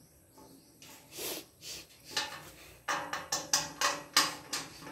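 Metal parts of a dish drainage rack knocking and clattering as the frame rails and wire basket are pushed and tapped together during assembly. A couple of soft scrapes come about a second in, then a quick run of about ten sharp knocks fills the last two seconds.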